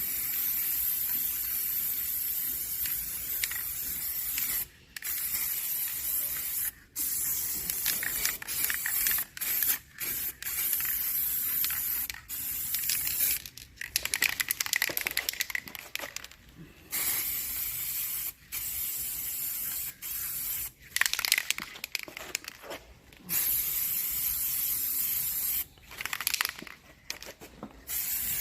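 Aerosol can of black spray paint hissing as a coat goes onto a steel spare wheel. It sprays in long bursts of a few seconds, each cut off abruptly where the nozzle is let go for a moment.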